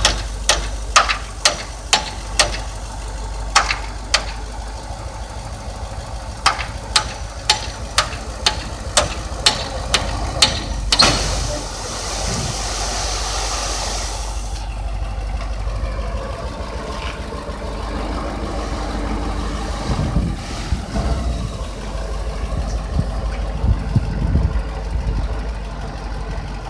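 Dump truck engine running while the raised bed tips out a load of sand. Sharp knocks come about twice a second through the first ten seconds, then a hissing rush of about three seconds as the load slides out, then the engine's steady rumble.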